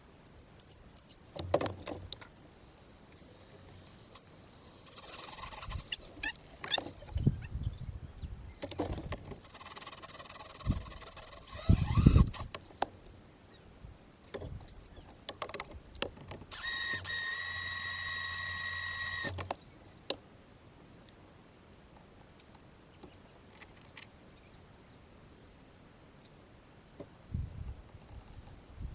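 Power drill boring through plastic trim in a few short runs, amid clicks and knocks of parts being handled. About two-thirds through comes the loudest sound, a steady tone lasting about three seconds.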